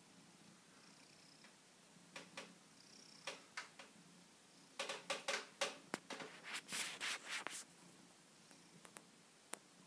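Domestic cat rubbing its head and fur against the phone, giving scratchy rustles and taps on the microphone. They come sparsely at first and most densely from about five to seven and a half seconds in, over a faint steady purr.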